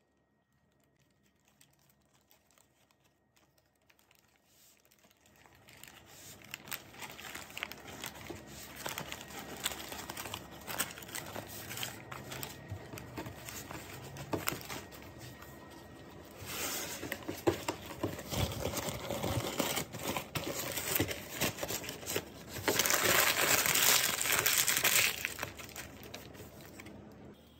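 Baking paper crinkling and rustling as a filled sponge cake is rolled up inside it. Faint for the first few seconds, then steady crackling with two louder spells, about two-thirds of the way through and near the end.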